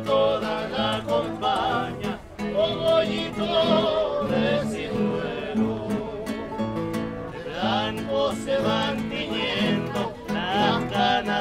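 Chilean tonada played live: acoustic guitars strummed with sharp percussive knocks marking the rhythm, and voices holding long, wavering notes.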